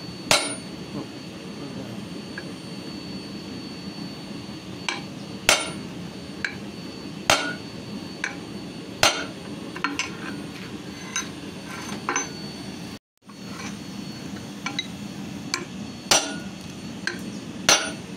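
Hand hammer striking a red-hot steel bar on a steel-plate anvil: single blows every second or two, with lighter taps between, each ringing briefly. The sound cuts out for a moment about two-thirds of the way through.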